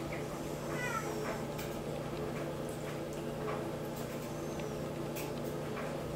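A newborn goat kid gives one short, high, meow-like bleat about a second in, with a few light clicks of its hooves on the wooden floor over a steady low hum.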